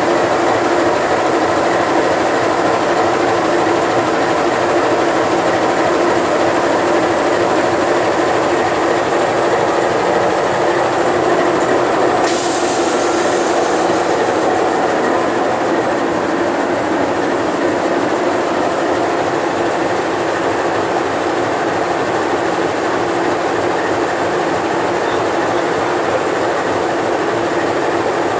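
CC 206 (GE C20EMP) diesel-electric locomotive's V8 diesel engine idling steadily while parked. About twelve seconds in, a sharp hiss starts and fades over a few seconds.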